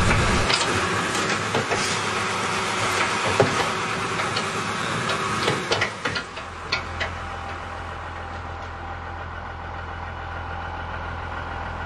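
Large vehicle engine running, with scattered clicks and knocks over the first half, then settling into a steady low idle hum.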